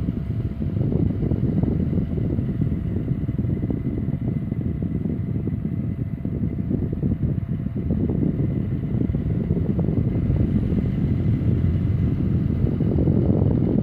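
Saivod FE 10 electric fan running: a steady, low rushing rumble of moving air with a faint steady whine, swelling briefly near the end.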